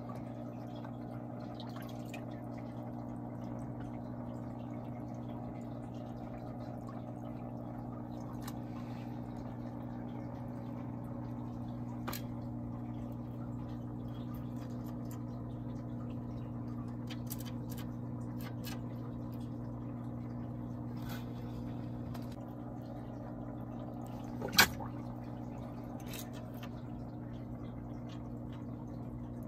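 Aquarium filter running with a steady electrical hum and faint dripping water. Scattered small clicks, with one sharp click about five seconds before the end.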